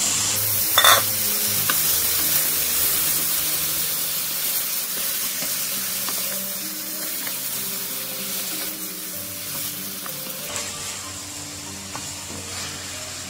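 Raw chicken pieces sizzling in hot oil with fried onions as they are stirred with a wooden spatula, with a sharp knock about a second in. The sizzle eases after about ten seconds.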